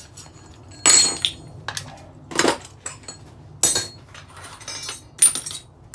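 Metal parts of a decking light clinking and knocking together as it is taken apart by hand: about five separate sharp clinks, some with a brief high ring.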